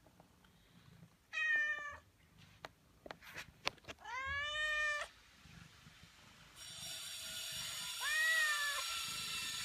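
Siamese red point kitten meowing three times, the middle meow the longest. A steady hiss sets in about two-thirds of the way through, under the last meow.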